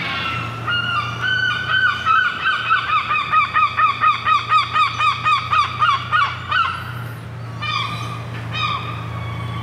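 A seagull's long call: a run of loud, rapid, repeated yelping notes lasting about six seconds, followed by a few shorter calls near the end.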